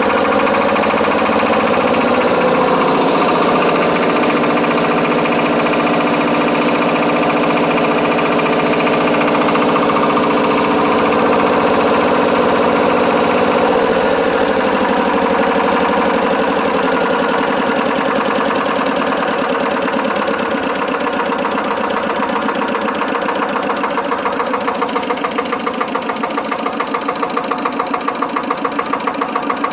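Single-cylinder Hatz diesel engine of a Bungartz T5 tractor running steadily. About halfway it drops a little in level, and toward the end it settles into a distinct, regular beat.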